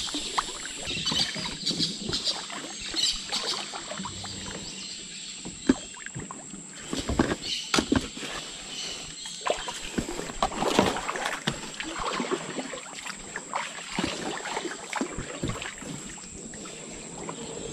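A small boat being paddled: irregular paddle splashes and knocks in the water, with no engine.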